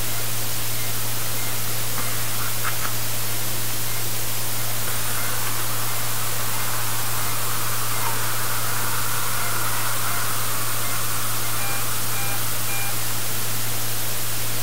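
Steady hiss over a low hum during a tooth extraction, growing brighter for several seconds from about five seconds in. Near the end come three faint, short, evenly spaced beeps.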